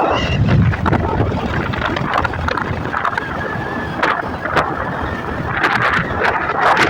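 Wind buffeting the microphone over the running noise of a vehicle on the road, with a few sharp knocks.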